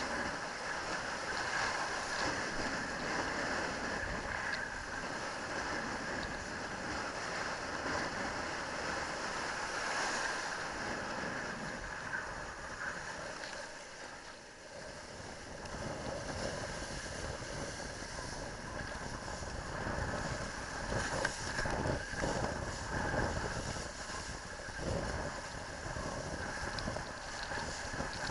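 Wind buffeting a helmet camera's microphone over the rush of a kiteboard planing through choppy surf, easing off briefly about halfway through.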